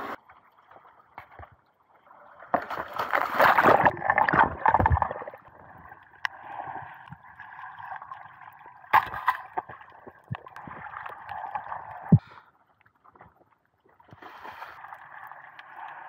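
Underwater sound picked up by a diver's camera: muffled gurgling water noise with a faint steady whine, a louder rush of bubbles a few seconds in, and a couple of sharp knocks.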